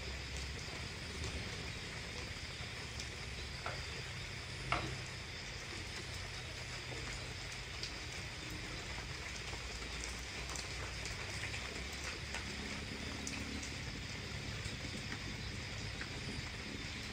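Steady chirring of night insects, with a few light clicks and one sharper knock almost five seconds in.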